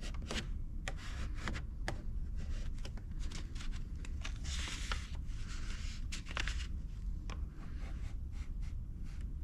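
Vinyl decals being applied by hand to a personal watercraft's panels: scattered small ticks and taps with rubbing and scraping, and a longer rubbing hiss around the middle, over a steady low background rumble.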